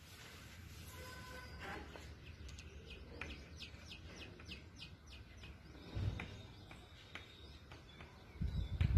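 Chalk scratching and tapping on a blackboard in short, quick strokes as words are written, about four strokes a second for a few seconds, with a couple of low thumps later on.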